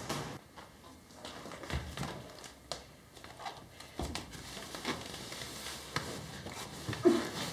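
Scattered soft knocks and clothing rustles as a person bends and kneels over a man lying on a wooden floor, with a louder knock near the end.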